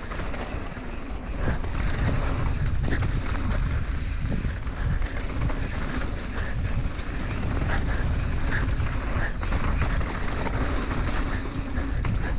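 Wind rumbling on the action camera's microphone and knobby mountain-bike tyres rolling over dry dirt singletrack at riding speed, with a few faint clicks from the bike.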